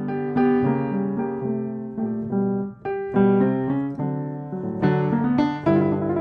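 Background piano music: a run of notes and chords played at an easy pace.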